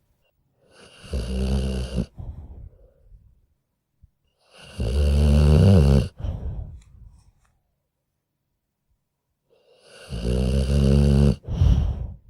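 Sleeping dog snoring in deep sleep: three loud snores about four seconds apart, each lasting a second or two, with quiet breaths between them.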